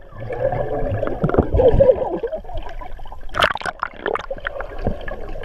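Muffled underwater sound of pool water heard through a submerged camera: churning and bubbling, loudest a couple of seconds in, with a sharper burst of bubbling about three and a half seconds in.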